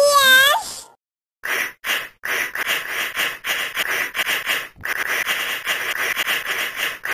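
Cartoon cat character sounds from the Talking Tom app: a short high-pitched gliding voice, then about five and a half seconds of rapid, breathy rasping pulses.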